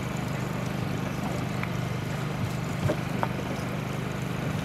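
Steady low hum of a motor running aboard a boat, with a couple of light clicks about three seconds in.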